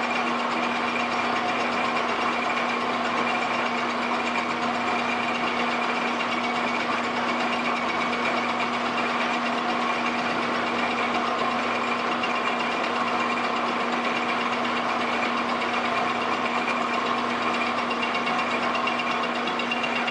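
Metal lathe running at a steady speed with a workpiece spinning in the chuck: a constant low hum under an even whirr that does not change.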